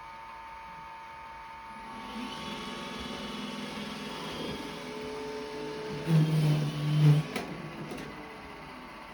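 Roomba robot vacuum's motors whirring as it manoeuvres, struggling to dock: a steady hum, then whirring that starts about two seconds in, a louder low drone of the drive for about a second near six seconds, and a sharp click.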